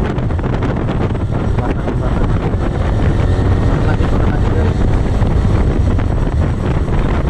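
Wind buffeting the microphone of a motorcycle being ridden at speed, a steady low rumble with road and engine noise underneath.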